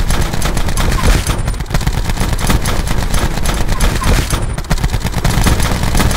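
Dense, rapid crackling bangs like sustained machine-gun fire, running without a break.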